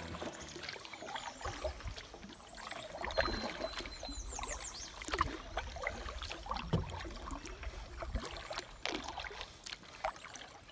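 Canoe paddling on calm water: paddle strokes dipping and trickling in the river, with scattered clicks and knocks against the Kevlar hull.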